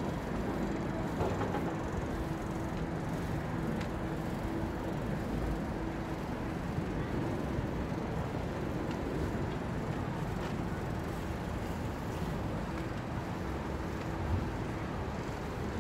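Steady outdoor background noise: a low rumble with a faint steady hum.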